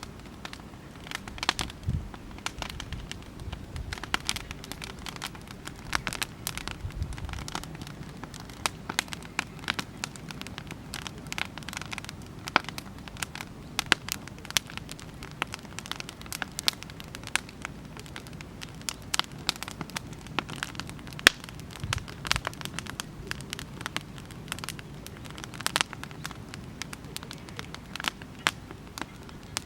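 Oak-log campfire burning, the wood crackling and popping irregularly many times throughout, over a low steady rumble.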